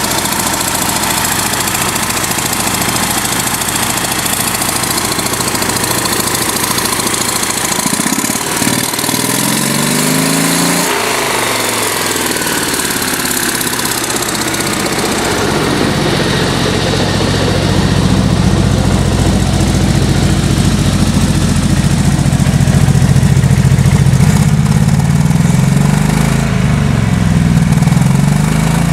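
Honda Civic EK engine on its first start, running with a bad exhaust leak. About eight seconds in there is a brief rising pitch, and from about halfway a deeper, steady engine note comes in and grows louder.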